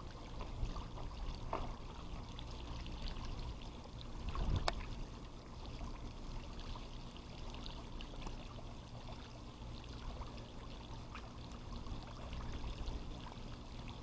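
Faint swimming-pool water trickling and lapping, with one brief louder sound about four and a half seconds in.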